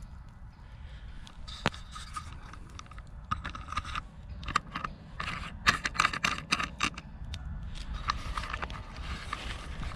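Rustling and crackling of dry leaves on the forest floor in irregular bursts with sharp clicks, along with handling of the camera as it is moved back from the fire, over a steady low rumble.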